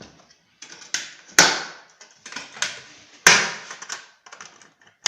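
Parts of a fireplace ash cyclone being handled and fitted together by hand: two sharp knocks about two seconds apart, with lighter clicks and rustling between them.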